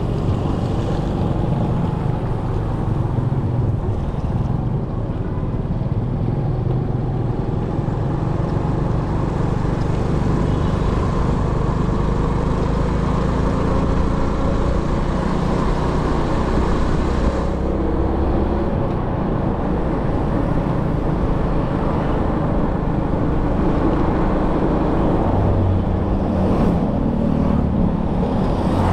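Steady vehicle engine and road noise heard from a moving vehicle driving through city streets. The engine note wavers slightly up and down.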